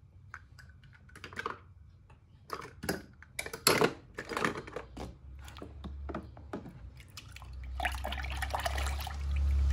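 Water in a plastic tub: scattered small splashes, drips and clicks, then, from about three-quarters of the way in, a steadier sloshing as a hand moves through the water.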